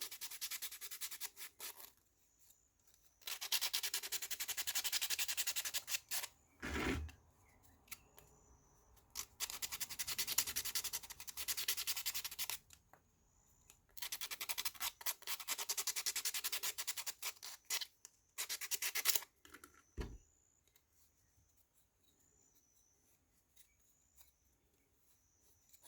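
Sandpaper rubbed back and forth by hand on the inside of a small laser-cut wooden retainer piece, in four bouts of a few seconds each with short pauses. A knock about seven seconds in and another about twenty seconds in, after which the sanding stops.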